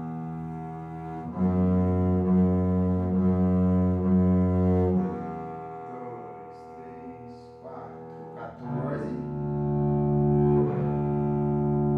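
Double bass played on the D string, holding long steady notes: one lasts about three and a half seconds, then a quieter, unsettled stretch, then another long note from about nine seconds in. The sustained, even notes are those of a bowed bass.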